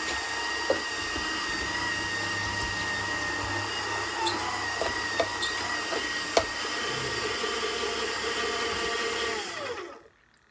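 Electric juice maker's motor running steadily with a high whine while pears are juiced, with a few sharp clicks and knocks. It is switched off near the end, and its pitch falls as it winds down.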